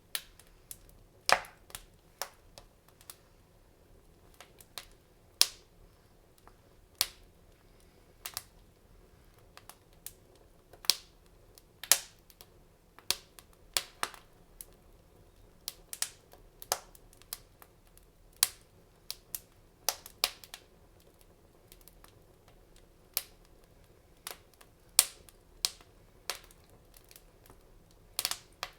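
Wood fire crackling in a fireplace: irregular sharp pops and snaps, about one or two a second, over a faint steady hiss.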